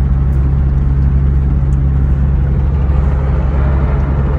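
A van's cabin while driving on a highway: a steady low engine drone with road and tyre noise, and the hiss grows louder about three seconds in.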